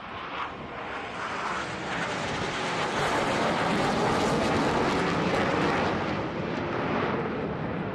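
Jet noise from four F/A-18 Hornets flying in diamond formation, each with two turbofan engines. It builds over the first few seconds, is loudest around the middle, then eases a little as the formation pulls away.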